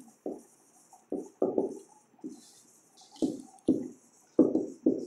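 Marker pen writing on a whiteboard: a string of short separate strokes with a faint scratchy hiss, as the letters of a heading are written.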